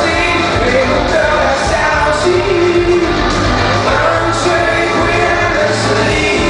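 Live pop-rock band playing through a PA sound system with a male lead vocal singing over guitars, bass and drums, a sound-check run-through of a song.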